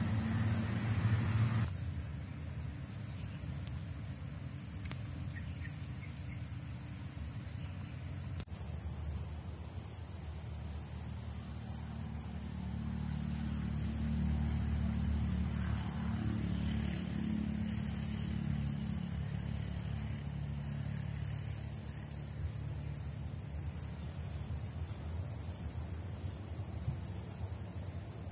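Steady high-pitched insect buzz over a low rumble.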